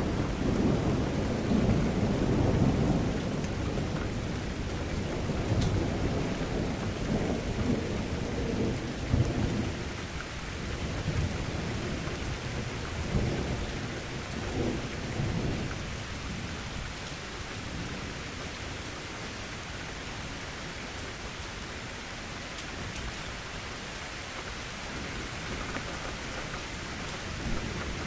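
Steady rain, with a long roll of thunder rumbling through the first half and dying away about halfway through.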